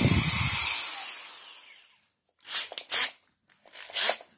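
Makita HP0300 corded hammer drill's 320-watt motor running at speed, then released and spinning down to a stop over about two seconds. A few faint handling sounds follow near the end.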